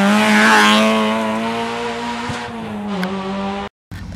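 Citroën Saxo rally car passing close and pulling away at high revs, its engine note dipping as it goes by and then holding steady. The sound cuts off suddenly near the end, leaving faint outdoor background.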